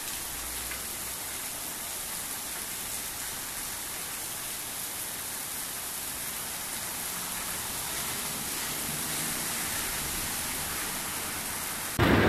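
Heavy rain pouring steadily on a street, an even hiss that cuts off abruptly near the end.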